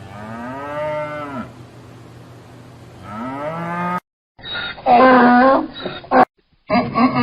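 Cattle mooing, four calls. The first two are quieter and rise then fall in pitch; after a short break come two louder moos held at a steadier pitch.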